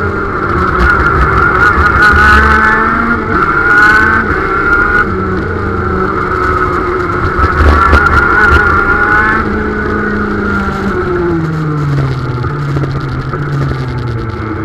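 KZ shifter kart's 125 cc two-stroke engine heard onboard, running hard with the revs rising and falling through the corners. From about ten seconds in the engine note drops in steps as the kart slows.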